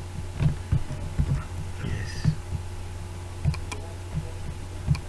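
Steady electrical hum from the recording setup, with scattered soft thumps and a few sharp clicks, typical of computer mouse and desk handling while editing.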